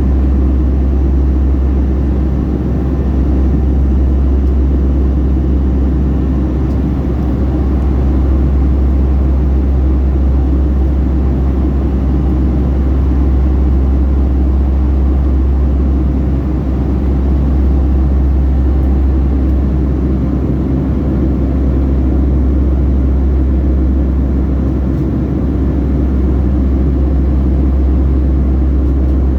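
Steady cabin noise inside a Boeing 757-300 airliner: a heavy low rumble of the jet engines and airflow, with a few faint steady hum tones above it.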